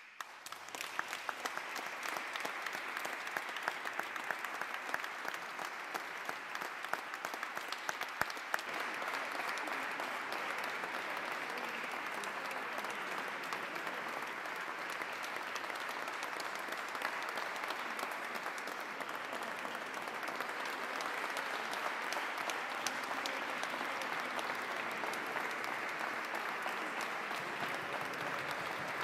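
Audience applauding, breaking out suddenly at the start and continuing steadily as a dense patter of many hands clapping.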